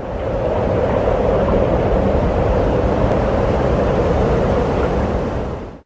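A steady rumbling rush of noise that fades in quickly at the start and cuts off suddenly near the end.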